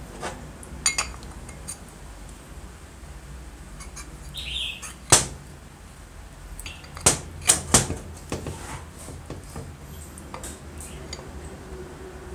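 Metal drill parts clinking and knocking as a gear housing and gears are handled and fitted together: scattered sharp clicks, the loudest about five seconds in, then three quick knocks about two seconds later.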